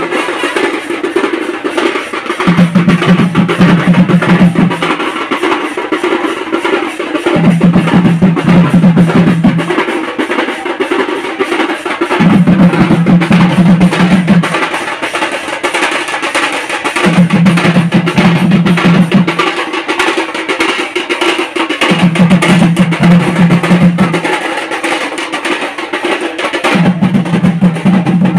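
Loud, drum-heavy wedding procession music: fast, steady drumming with a deep bass note that comes in for about two seconds and drops out, repeating about every five seconds.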